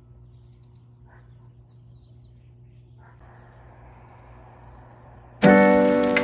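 Faint outdoor ambience with a low steady hum and a few brief bird chirps. About five seconds in, background music comes in with a loud ringing chord that slowly fades.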